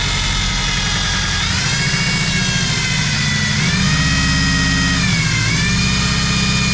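Electric power tool motor running steadily, its pitch sagging and recovering three times as it is loaded.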